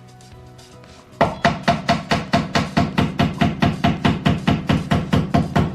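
Hammer blows during flat-pack desk assembly, coming fast and evenly at about four a second, each with a short ring, starting about a second in over quiet background music.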